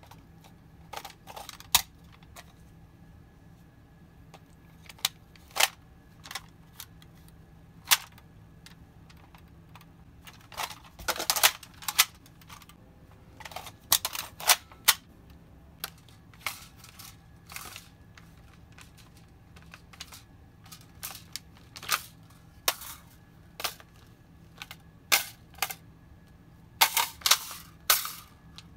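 Plastic toy blasters being reloaded by hand: sharp clicks and clacks of magazines pulled out and pushed home and slides racked. The clicks come singly and irregularly, with a few quick rattling runs of several clicks.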